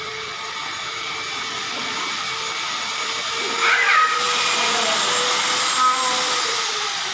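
A small electric motor running with a steady whirring hiss and a faint hum, louder from about four seconds in. A brief high squeak sounds near four seconds in.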